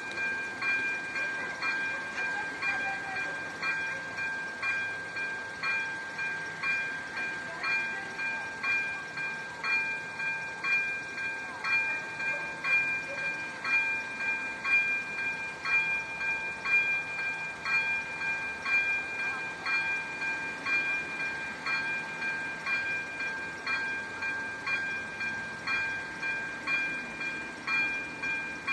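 Railway level-crossing warning bell ringing in an even rhythm, about two strikes a second: the crossing is signalling an approaching train.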